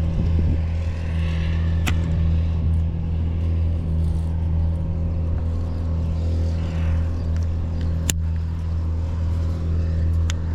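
A steady low engine-like hum that does not change, with three short sharp clicks, about two, eight and ten seconds in.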